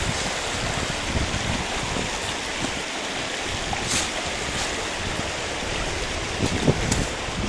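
Mountain river rushing steadily over rocks, with wind gusting on the microphone and a couple of brief clicks.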